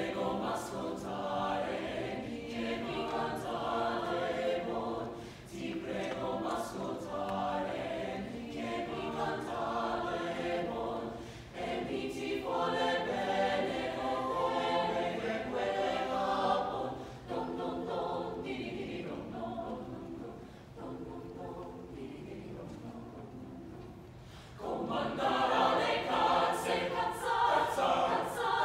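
Mixed choir singing in parts, phrase after phrase; it drops to a softer passage for several seconds, then comes back louder and fuller a few seconds before the end.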